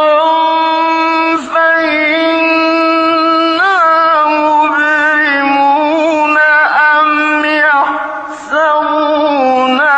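A man reciting the Quran in the melodic mujawwad style, one voice holding long ornamented notes that bend and waver in pitch. The voice breaks off briefly about one and a half seconds in and again near the end.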